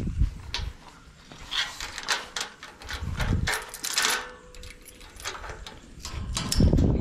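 Metal latch and wire livestock panel being handled at a fence post: a run of sharp clicks, clinks and rattles, with a couple of dull low thumps, the loudest one near the end.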